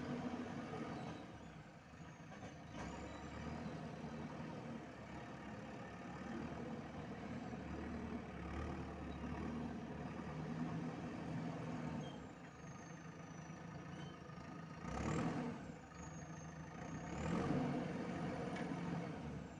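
Diesel engine of a JCB 3DX backhoe loader running steadily under working load, with a thin high whine that rises and falls, and two louder noisy surges near the end.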